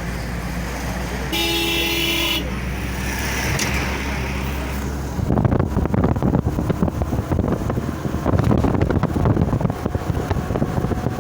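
Road vehicle driving, its engine and road noise running steadily, with a car horn honking once for about a second near the start. About halfway through, a louder rough rushing noise takes over.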